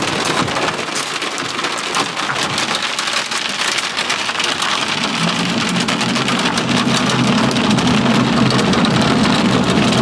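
Heavy rain drumming on the car's roof and windows, a dense patter of hits heard from inside the car. About halfway through, a low steady hum from the car grows in underneath.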